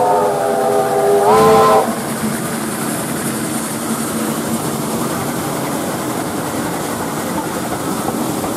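A steam locomotive's multi-note whistle holding a long blast that dips slightly in pitch, lifts again and cuts off about two seconds in. After that, the steady running noise and rail clatter of the steam train at speed.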